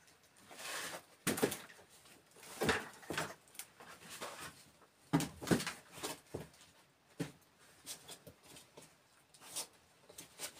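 Rubber boots stepping on a wooden plank and stone floor, with irregular knocks and thuds as a bucket of dug earth is handled and carried.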